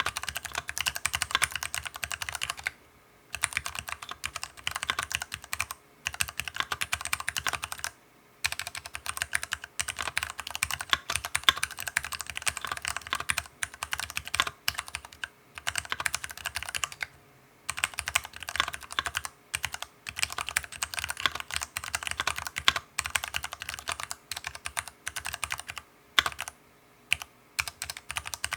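Archon FX2 all-aluminium mechanical keyboard with lubricated Cherry MX Brown switches being typed on quickly and continuously, a dense run of key clacks broken by a few short pauses.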